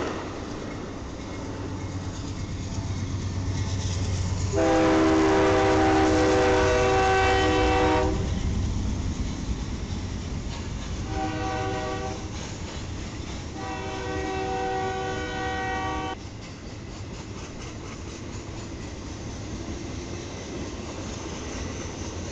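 BNSF diesel freight locomotives sounding their horn: a long blast, a short one and another long one, the grade-crossing pattern, over the rumble of the approaching engines. After the horn, the steady rolling noise of the train's loaded rail cars passing continues.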